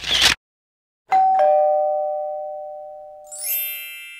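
Logo sting sound effect: a short whoosh, then two bell-like chime notes, a higher then a lower, struck a moment apart and ringing down slowly. A high sparkling shimmer swells in a little after three seconds.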